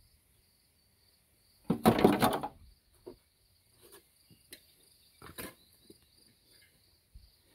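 Beekeeping equipment being handled at an open hive: one loud rustling clatter about two seconds in, then a few light knocks and clicks. A steady high-pitched trill runs underneath.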